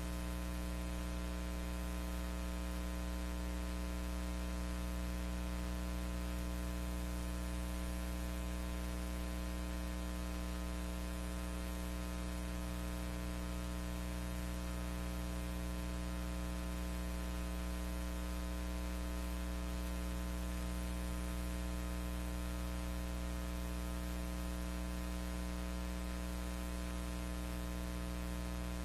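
Steady electrical mains hum with hiss, unchanging throughout. There is no sound from the scene itself, since the footage is silent.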